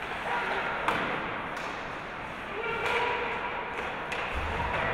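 Hockey play: scattered sharp knocks of sticks and puck, several in a few seconds, over a steady hubbub of distant voices.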